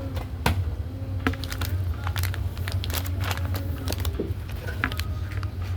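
Café ambience: a steady low hum with scattered clicks and clatter, and faint distant voices.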